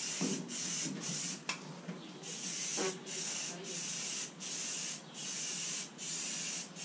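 Aerosol spray can of primer hissing in short repeated bursts, a little more than one a second, with brief breaks as the nozzle is released and pressed again. One brief click comes about a second and a half in.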